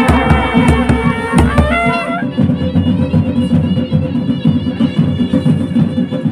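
Himachali procession band: long brass horns, straight karnal and curved ranasingha, blowing calls that glide up in pitch over deep drum beats. About two seconds in the deep beats drop out, leaving held horn tones over lighter drumming.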